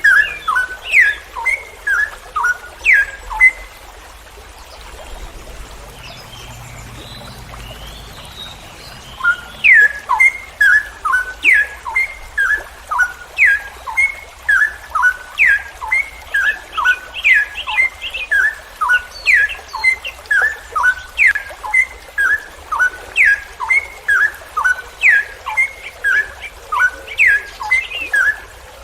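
Straw-headed bulbul (cucak rowo) singing a long run of loud, clear whistled notes, each sliding downward, about two a second. The song breaks off a few seconds in and starts again about nine seconds in, then runs on without a pause.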